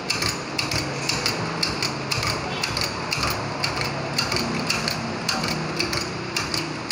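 Irregular sharp metal clinks and knocks, several a second, as a steel steering knuckle with its wheel hub and dust shield is shifted and set on the steel bed of a hydraulic press.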